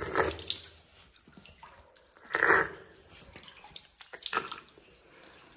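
Spring water trickling down a cave wall and splashing in three short bursts as a man drinks from the flow, the loudest about two and a half seconds in.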